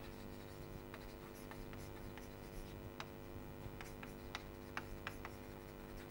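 Chalk writing on a chalkboard: faint scattered taps and short scratches as words are chalked out, over a steady low hum.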